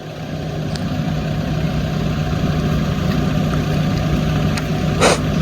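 Heavy diesel engine running steadily at an even, low pitch, with a short, noisy rattle near the end.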